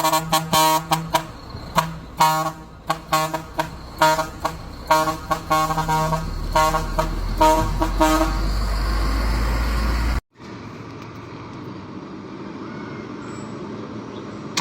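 Large vehicle air horns tooted in a quick, rhythmic series of short blasts over a steady low tone for about eight seconds. A low rumble then builds and cuts off suddenly, giving way to a quieter, steady noise.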